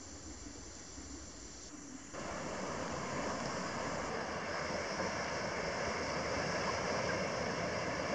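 Steady wash of surf on a beach, starting suddenly about two seconds in. Before that comes a quieter forest hiss with a thin, high steady insect buzz.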